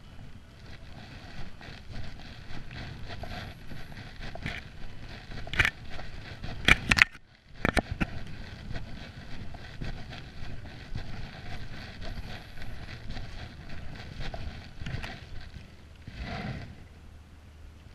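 Rough, rumbling noise from a camera being carried while walking, with wind on the microphone and several sharp knocks, loudest between about five and seven seconds in.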